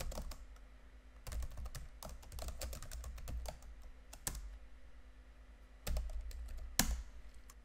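Computer keyboard being typed on: short key clicks in uneven runs, with a pause in the middle and one louder keystroke near the end, over a low steady hum.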